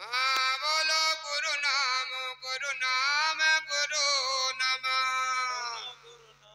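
A single voice singing a long devotional phrase through a microphone and loudspeaker, with held, wavering notes, fading out near the end over a steady low hum.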